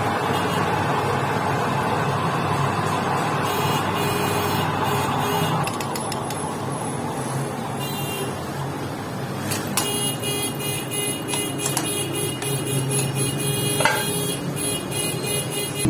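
Workshop machine running steadily, with high-pitched ringing tones joining about four seconds in and again near the middle.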